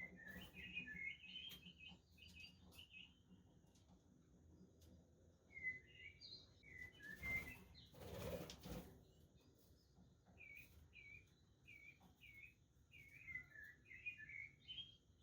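Budgerigars chirping in quick runs of short, high calls, with a short burst of noise near the middle.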